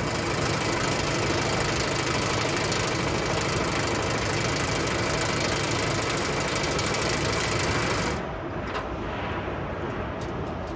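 Coiled architectural wire mesh machine running, its motor-driven spindle winding wire into a spiral with a steady, dense clatter. About eight seconds in the high clatter stops and the sound drops to a quieter steady machine hum.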